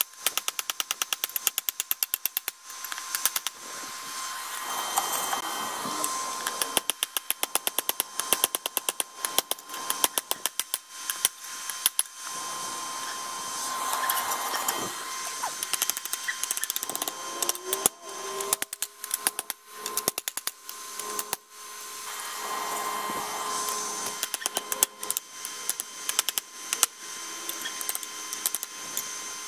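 Hand hammer striking a hot 5160 steel knife blade on a railroad-track anvil in rapid runs of blows, several bursts with pauses between, straightening the warped blade.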